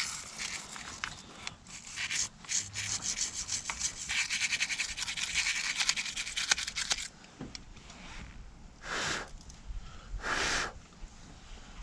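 A brush scrubbing crusty corrosion off a car battery terminal with rapid, scratchy strokes for about seven seconds, then two short separate swishes near the end.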